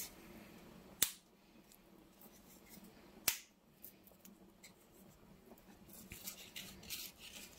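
Stiff, flat dumpling strips being snapped into pieces by hand: two sharp snaps about two seconds apart, then a few fainter cracks near the end.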